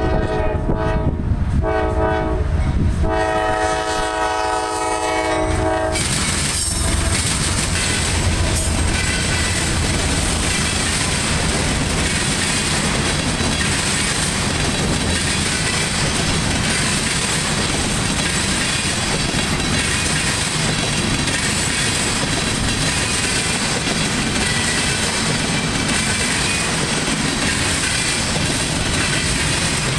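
Horn of CSX CW44AC diesel locomotive 459 sounding three blasts, the last one long, cut off about six seconds in as the locomotive reaches the crossing. Then the loud, steady rolling noise and clickety-clack of the empty rail train's flatcars passing over the diamond.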